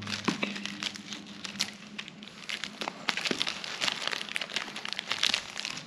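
Clear plastic wrap being peeled off a Ferrero Collection chocolate box, crinkling with a scatter of small crackles and ticks as the strip is pulled away.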